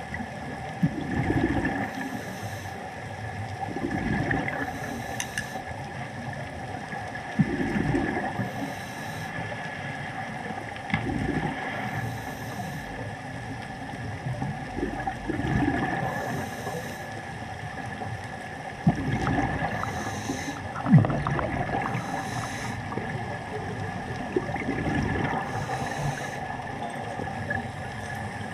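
Scuba diver breathing through a regulator underwater: a high hiss on each inhalation alternating with a burst of bubbling on each exhalation, about every three to four seconds, over a steady hum.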